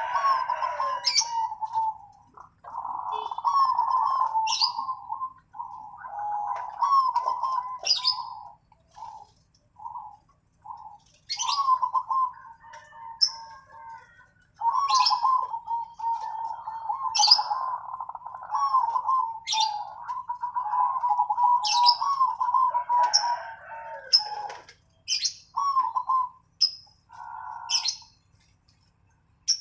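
Zebra doves (perkutut) cooing: phrase after phrase of rolling, staccato coos with short pauses between them, cut through at intervals by short, sharp, high chirps from another bird.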